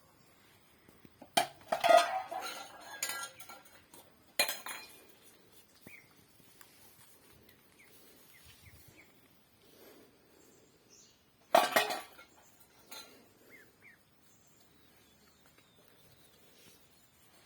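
Clinking and clattering of hard objects, like dishes or metal pieces knocking together. It comes in three bursts: a cluster about one and a half to three and a half seconds in, a sharp single one around four and a half seconds, and another about twelve seconds in.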